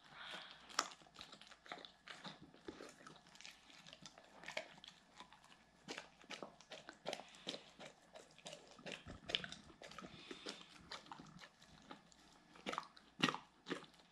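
A Doberman eating crumbled dog cake from a plate: irregular, wet chewing, biting and smacking noises.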